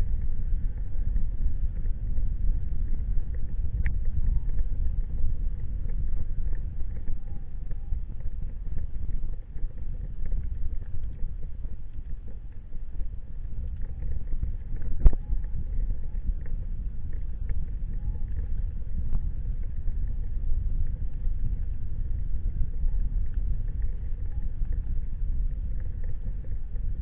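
Steady low rumble of a vehicle in motion, with a single sharp knock about fifteen seconds in.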